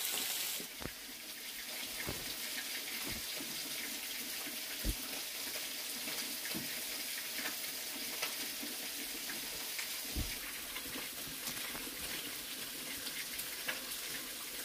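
Steady rushing, water-like hiss, with a few soft knocks and thuds scattered through it, the sharpest about five seconds in and another about ten seconds in.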